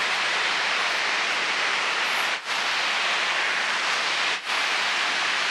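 Rushing water of the Nishiki River pouring over a shallow weir and rapids: a steady white-water hiss that dips briefly twice.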